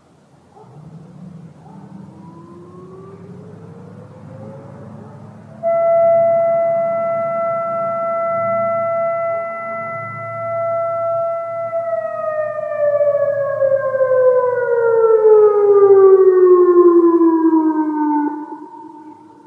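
Outdoor warning siren, an A.S.C E-Class, sounding its daily noon test. It winds up in pitch for a few seconds, jumps much louder and holds one steady tone for about six seconds, then winds down slowly and cuts off near the end.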